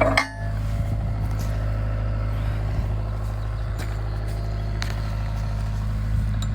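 Bobcat mini excavator's diesel engine idling steadily, with a few faint metallic clicks.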